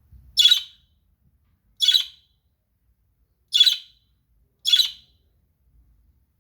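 Budgie giving four short, rasping calls, spaced one to two seconds apart.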